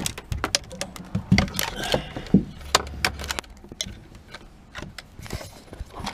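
Irregular clicks, taps and light rattles of wiring, plastic dash parts and a multimeter's test leads being handled, busier in the first half and sparser later.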